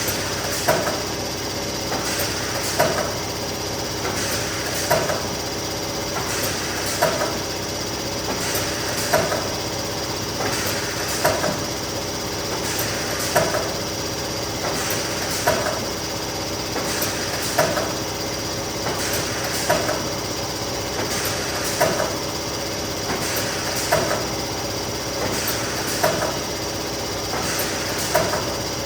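Neoram 540 hot laminating machine running steadily while sheets feed through one after another, with a sharp clack about every two seconds.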